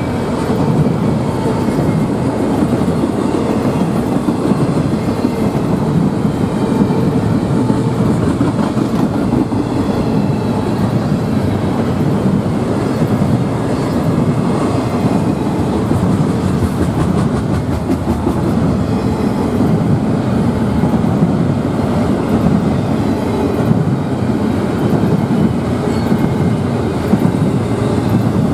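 Norfolk Southern double-stack intermodal container train passing at close range: a steady, loud rolling noise of steel wheels on the rails as the container cars go by.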